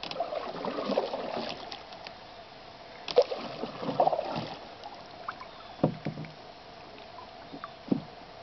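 Canoe paddle strokes: two rounds of paddle splashing and water gurgling in the first half, then two short sharp knocks, about two seconds apart, as the paddle touches the canoe.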